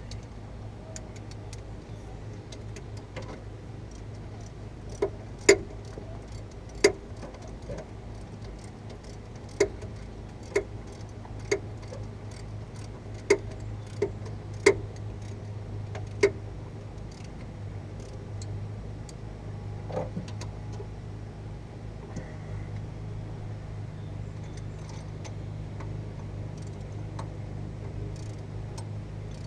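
Sharp metal clinks and knocks of hand tools and parts during front wheel hub work, about ten of them spread over ten seconds, over a steady low hum.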